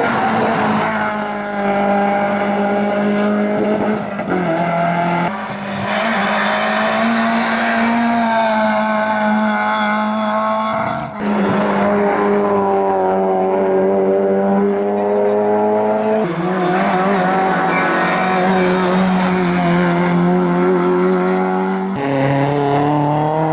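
Hillclimb race car engines running hard at high revs, pitch rising and falling gently through the corners, with possible tyre squeal. The sound changes abruptly several times, as one car gives way to another.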